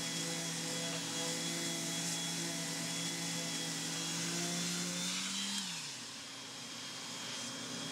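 Electric sander with a dust-extraction hose running steadily on an MDF board, then switched off about five and a half seconds in, its hum sliding down in pitch as it spins down. Another steady hum carries on after it stops.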